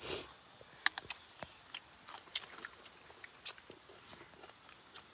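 Quiet eating sounds: a handful of faint, scattered clicks and chewing noises.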